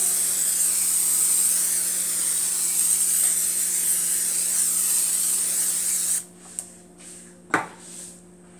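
Aerosol olive oil cooking spray hissing in one long continuous spray into a hot wok, cutting off suddenly about six seconds in. A sharp knock follows about a second and a half later.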